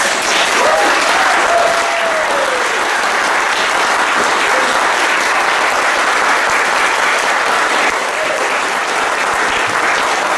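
Audience applauding loudly and steadily, with one voice cheering briefly about a second in.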